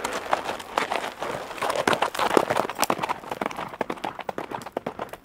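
A horse galloping: a quick, uneven clatter of hoofbeats, louder in the first half and fading toward the end.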